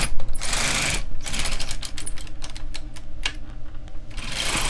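Silver Reed LK 150 knitting machine carriage pushed across the needle bed to knit a row, with a run of sharp clicks and rattles as the needles pass through the carriage. A sliding hiss starts again near the end.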